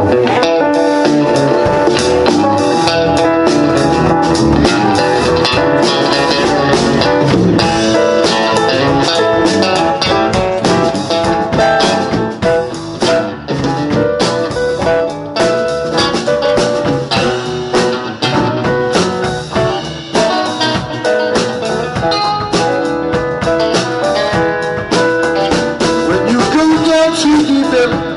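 Live band playing an instrumental blues passage: electric guitars leading over bass guitar, drum kit and keyboard, with no singing.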